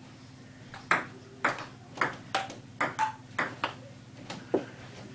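Ping pong rally: the ball clicks sharply off the paddles and the table, about three clicks a second, often in quick bounce-and-hit pairs. It starts about a second in and stops shortly before the end.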